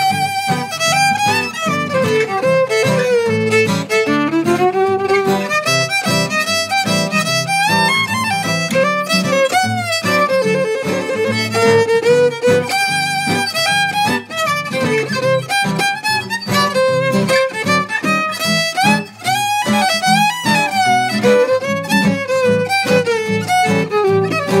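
Fiddle playing a ragtime melody in quick runs of notes over a steady strummed-guitar chord backup.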